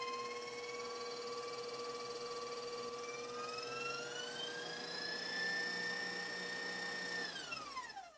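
Stand mixer's motor whining as its wire whisk whips meringue for macarons. The whine climbs in pitch about three seconds in, holds steady, then drops and dies away as the mixer is switched off near the end.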